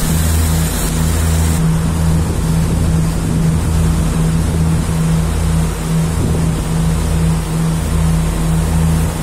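Twin diesel engines of a Lagoon 42 catamaran running steadily under way, a low drone that swells and dips in a slow, regular throb, over the hiss of the churning wake. The hiss lessens about a second and a half in.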